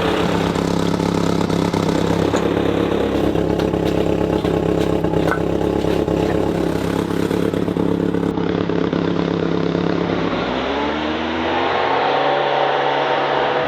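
A vehicle engine running steadily, then rising in pitch about ten seconds in as it revs up or accelerates.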